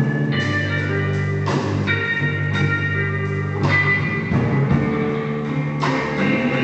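Blues-rock band playing, with guitar to the fore and strong accented strokes about once a second.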